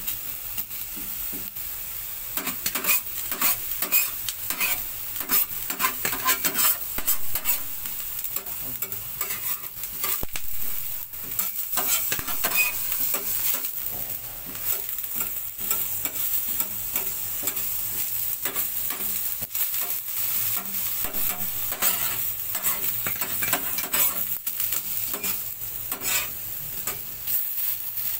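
Halved eggplants frying in oil on a hot grill plate: a steady sizzling hiss with frequent small crackles and pops.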